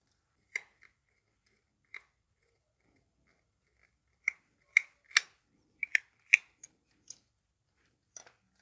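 Scattered small clicks and taps from wires and a plastic lamp holder being handled during wiring, a few early on and then a quick run of them in the second half.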